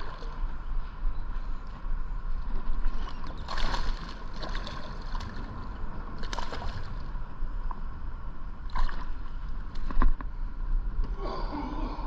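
Hooked bass splashing and thrashing at the surface beside a kayak as it is fought and landed: several short splashes and water sloshing, with a couple of sharp knocks late on.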